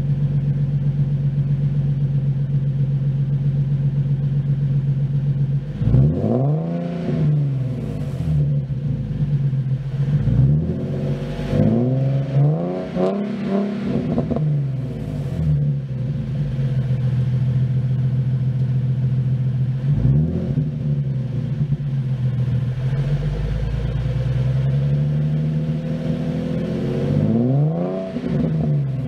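Nissan 370Z's 3.7-litre V6 running through an Auto Dynasty cat-back exhaust, already warm. It idles steadily, then is revved several times, each rev rising and falling back to idle: about six seconds in, a cluster around eleven to fifteen seconds, once near twenty seconds and once near the end. It is loud even at idle.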